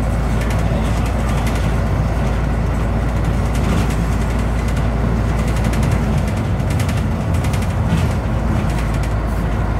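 Scania N94UB bus under way, heard from inside the passenger saloon: its Scania DC9 9-litre diesel engine running steadily, with road noise.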